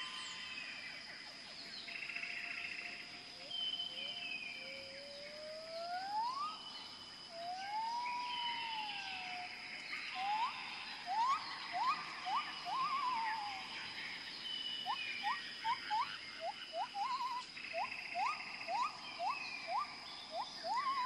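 Several birds calling from the trees: a mix of chirps and whistles, with runs of quick rising whistles about two a second in the second half, over a steady high-pitched tone.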